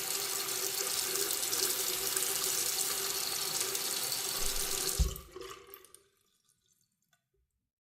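Water tap running steadily into a sink, a full hiss with a faint steady tone. About five seconds in it cuts off with a low thump, and a brief trickle and a few drips die away.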